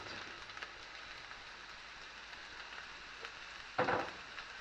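Chopped onion and garlic sizzling gently in olive oil in a frying pan, a steady crackling hiss, with a brief louder burst of noise near the end.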